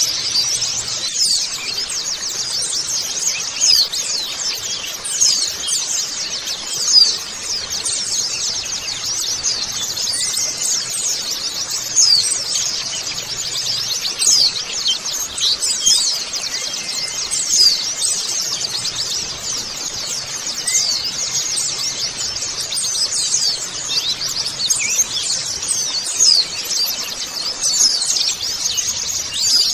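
A flock of white-eyes (pleci) twittering: many high, thin chirps and short falling notes overlap without a break.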